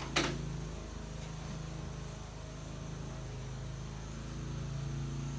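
A single sharp click or knock just after the start, over a steady low hum.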